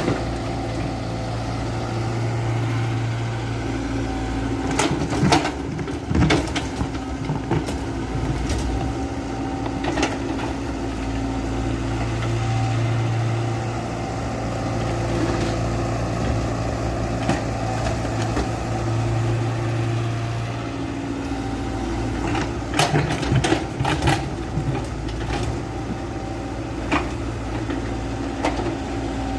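Excavator and dump truck machinery running with a steady engine-like hum that swells and fades, broken by bursts of clattering knocks about five seconds in and again near twenty-three seconds in.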